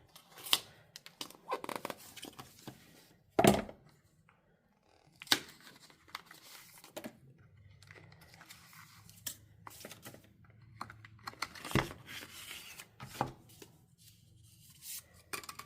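An Apple Pencil Pro's packaging being torn open by hand: paper tearing and crinkling, with irregular sharp clicks and knocks as the small box is handled. The loudest knock comes about three and a half seconds in.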